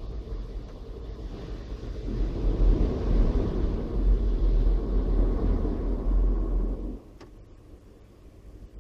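Rotating brushes of a Tammermatic T700 Lux car wash scrubbing over the car, heard from inside the cabin as a loud low rumble and swish that swells about two seconds in. It cuts off abruptly about seven seconds in, leaving a much quieter background.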